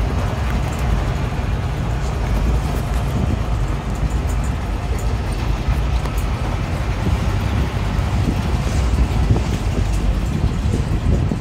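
Open-sided safari vehicle driving along, with a steady low rumble of engine and wheels.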